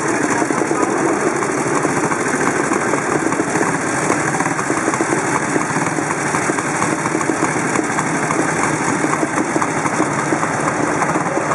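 Vintage motorcycle engines idling at the starting line, a steady, rapid pulsing that holds even throughout.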